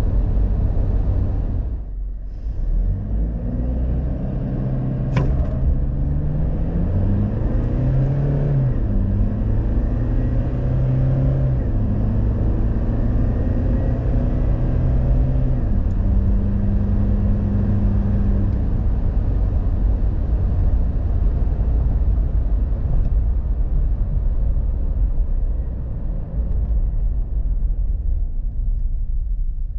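Inside the cabin, the Toyota Fortuner's 2.8-litre turbo-diesel four-cylinder and steady road rumble as the SUV slows from about 110 km/h in drive. The engine note climbs and steps as the six-speed automatic downshifts, then drops out about 18 seconds in, leaving only the tyre and road rumble.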